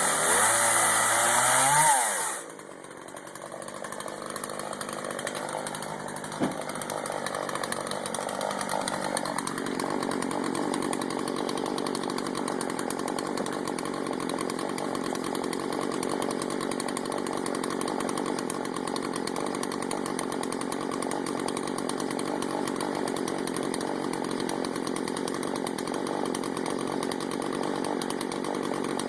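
Small gasoline engine running at high revs, its pitch wavering, then dropping about two seconds in to a lower, steady run that holds for the rest of the time.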